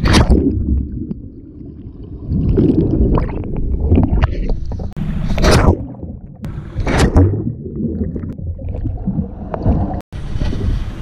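A spear pole plunging into the water: a splash at the start and two more about five and a half and seven seconds in, with gurgling and rumbling of churned water and bubbles in between, partly heard from under the surface. The sound cuts out for a moment near the end.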